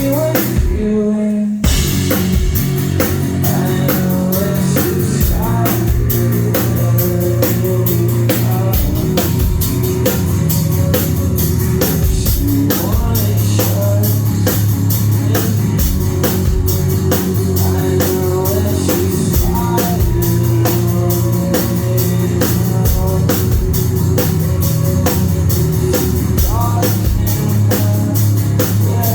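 Live rock band playing loud: drum kit, guitars and bass, recorded on a phone in the crowd. The band briefly drops out about a second in, then comes back in full.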